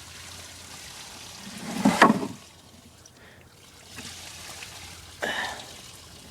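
Rainwater pouring and trickling off, with a louder splash about two seconds in and a shorter one about five seconds in.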